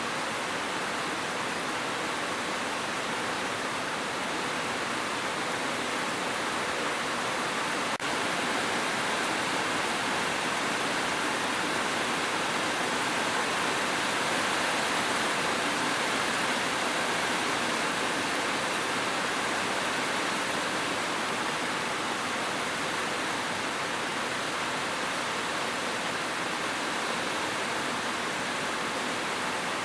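Steady, dense rain: an even rushing hiss with no separate drops standing out. There is a tiny break about eight seconds in, after which it is slightly louder.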